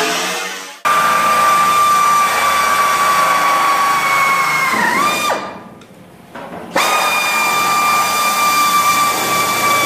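Pneumatic cut-off tool cutting a square hole in sheet-metal truck bed panel, running with a steady high-pitched whine. Partway through it drops in pitch under load, stops for about a second and a half, then starts again. In the first second the previous grinder winds down.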